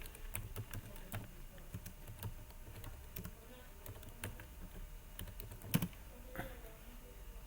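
Typing on a computer keyboard: a run of uneven keystroke clicks, as when entering a web search, with one louder key hit about three-quarters of the way through.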